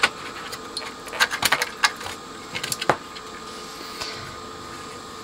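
A printed circuit board being handled over an amplifier chassis: scattered sharp clicks and light knocks, bunched in the first three seconds, over a faint steady hum.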